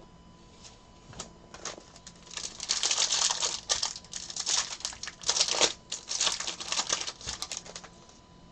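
Foil trading-card pack wrapper crinkling as it is handled and torn open, in crackly bursts from about two seconds in until shortly before the end, after a few light clicks.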